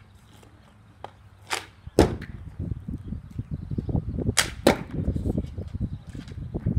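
Hockey stick striking a small hard ball on asphalt during stickhandling: scattered sharp clicks and cracks, the loudest about two seconds in and two more close together near the middle, over a rough low rumble.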